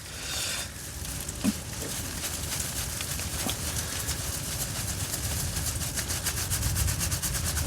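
Strong wind buffeting the tent in a storm, a steady low rumble, with rain pattering fast on the tent fabric, the patter growing denser near the end.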